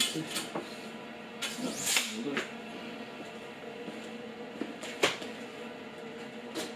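Scattered handling noises: a scrape and a few sharp knocks, the loudest about five seconds in, over a faint steady hum.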